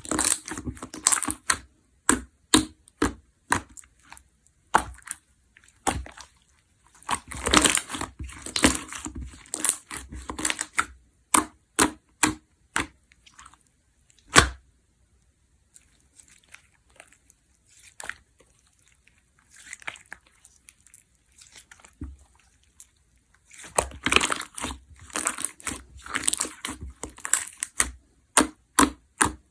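Watermelon sherbet jiggly slime being squished, pressed and stretched by hand, giving rapid crackling and popping clicks. The clicking thins out to a few faint pops through the middle, then picks up again about twenty-four seconds in.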